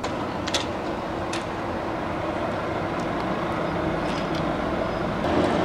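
Fire engine's diesel engine running steadily and growing slightly louder, with a few sharp pops from the burning SUV, the clearest about half a second and a second and a half in.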